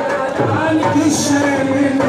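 Devotional Sufi music, typical of qawwali: singing with hand-drum accompaniment.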